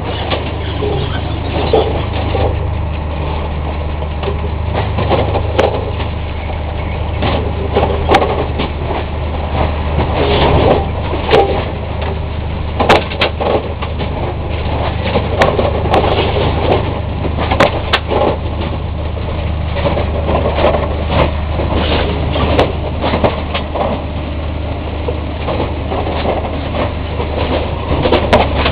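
Track renewal machine working: its engine runs steadily underneath frequent metallic clanks and the crunch of ballast stones as its plough blades are dragged through the gravel under the rails.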